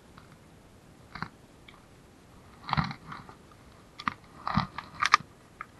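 A handful of short, irregular knocks and clicks with quiet between them, coming thicker and louder near the end.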